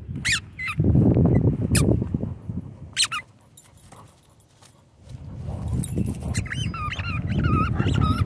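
A German Shorthaired Pointer chewing and mouthing a ball in the grass close by, with a few short sharp squeaks. A wavering dog whine comes in near the end.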